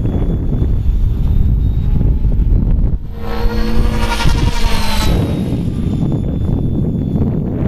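Compass Atom 500 electric RC helicopter, with a Kontronik Minipyro brushless motor, making a high-speed pass: its rotor and motor whine swells and peaks about three to five seconds in, over a steady low rumble.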